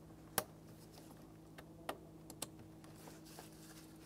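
Small plastic clicks and taps as a wiring-harness connector is handled and worked onto an airbag clock spring: one sharp click just under half a second in, then a few lighter clicks around two seconds in. A faint steady low hum lies under it.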